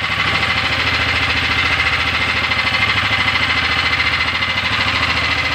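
A fishing boat's engine running steadily at a constant speed, with a fast, even beat.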